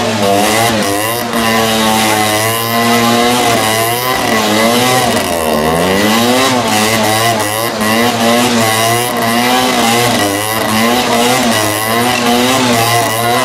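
Famel Zundapp motorcycle's small two-stroke engine revving up and down as it is held in wheelies. The pitch rises and falls in long sweeps, then in quick blips about once a second in the second half.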